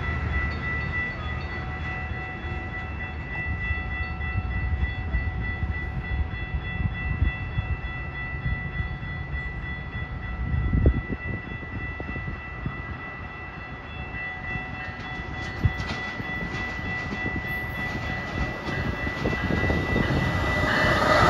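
Amtrak Siemens Charger diesel locomotive approaching with a low engine rumble that grows louder as the train reaches the platform near the end. A steady high-pitched tone sounds throughout.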